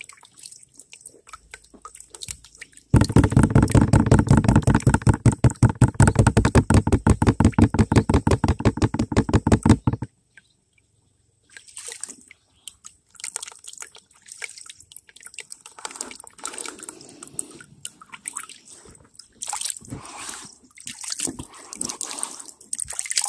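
Water sloshing and dripping in a gold pan as the fine gold concentrate is washed. About three seconds in comes a loud, fast rhythmic pulsing, roughly eight beats a second, that stops suddenly some seven seconds later. Softer, irregular sloshing and drips follow.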